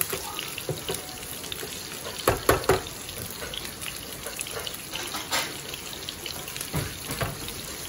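Pork embutido and bacon sizzling steadily in a frying pan of bacon fat, with a few knocks about two and a half seconds in and again near the end.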